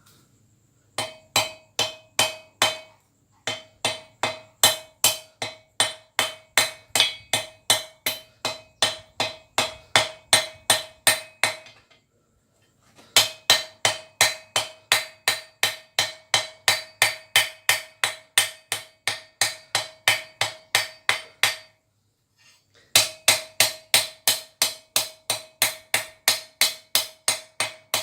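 Blacksmith's hand hammer striking hot steel on an anvil, evenly about three blows a second, each with a ringing note. The blows come in four runs with short pauses between them.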